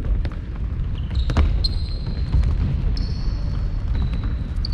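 Futsal ball being kicked and bouncing on the court, a string of sharp knocks over a steady low rumble, with high squeaks from about a second in.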